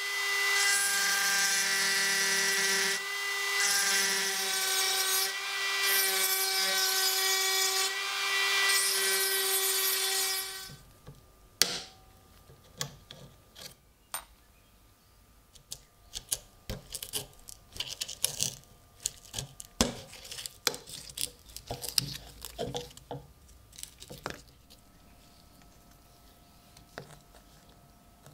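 A small high-speed electric power tool runs steadily on the rusty knife, a whine with grinding hiss, and cuts off about ten seconds in. Light, scattered clicks and short scrapes of handling follow.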